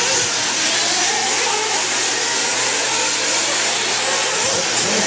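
Small two-stroke nitro engines of several 1/8-scale RC buggies running together, their high-pitched whine climbing and dropping over and over as the cars accelerate and brake around the track.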